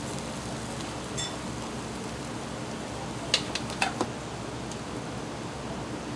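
Steady whoosh of a commercial kitchen's ventilation fan, with a quick run of about four sharp clinks of utensils and dishes a little past halfway.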